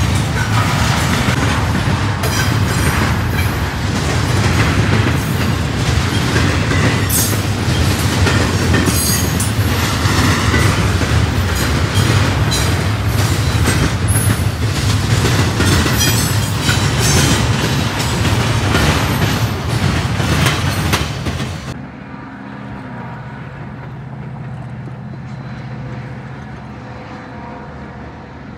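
Double-stack intermodal freight train rolling past close by, its wheels clacking rhythmically over rail joints. About 22 seconds in, the sound drops sharply to a quieter steady low hum from a distant train.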